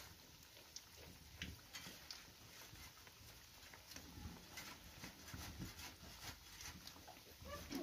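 Faint sizzling and crackling of khajor dough pieces deep-frying in hot oil in a wok over a wood fire, with scattered small pops and ticks.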